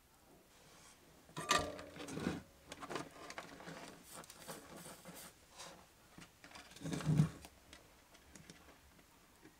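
Small clicks, taps and rustles of hands working with wires and a toggle switch over a circuit board, and a soldering iron being lifted from its stand, with two louder knocks, one about a second and a half in and one about seven seconds in.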